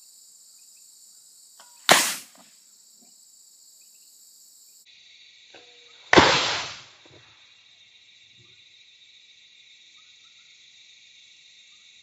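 Two arrow shots at a foam block target. Each is a faint click of the bow's release followed a moment later by the sharp smack of the arrow striking, about two seconds in and again about six seconds in. The second strike is louder and trails off over most of a second. Crickets chirr steadily throughout.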